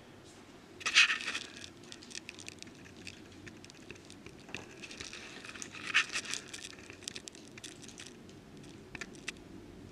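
Pliers and small metal hot-end parts clinking and scraping as a 3D printer's heated heat block and nozzle are unscrewed from the old hot end. The clicks and scrapes are scattered, with the loudest bursts about a second in and about six seconds in.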